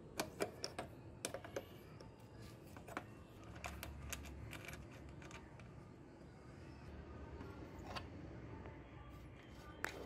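Irregular small metal clicks and taps of a screwdriver working at the screws of a Honda CD 70 motorcycle's headlight housing, most of them in the first few seconds.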